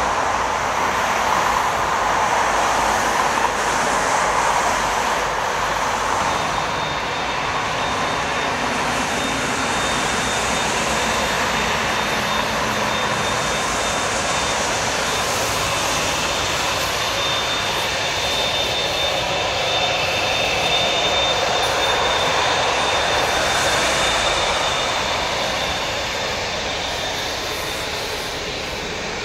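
Airbus A380-861's four Engine Alliance GP7200 turbofan engines running as the airliner rolls along the runway and taxis past: a steady jet rush with a thin high whine that comes in after about six seconds. The sound fades a little near the end.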